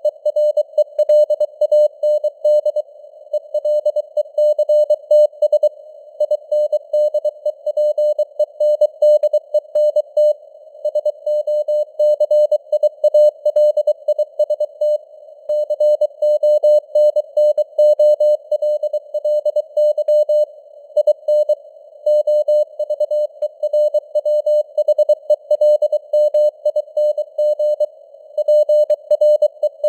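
Morse code (CW) sent at 23 words per minute: a single steady-pitched tone keyed in rapid dots and dashes, with short pauses between words, over a hiss of simulated radio noise.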